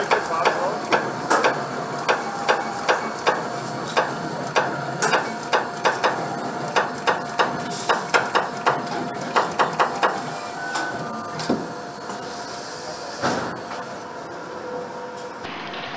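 Automatic VIN marking machine stamping the vehicle identification number into a Porsche 991 body shell: a series of sharp metallic strikes, a couple a second, one per character, for about the first eleven seconds. A single louder strike follows near the end, over a steady factory hum.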